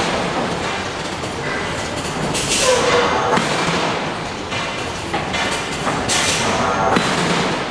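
Large hydraulic forging hammer striking hot steel: heavy blows with a metallic ring, two of them about three and a half seconds apart, over steady forge-shop machinery noise.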